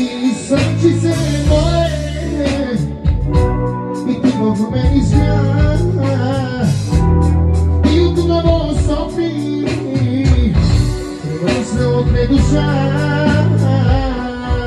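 Live band music: keyboards carrying a bending melody over a steady bass line, with regular drum beats.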